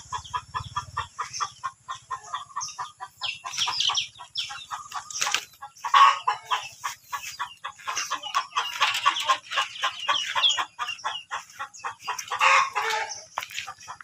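Chickens clucking, a rapid run of many short calls, with louder, longer calls about six seconds in and again near the end.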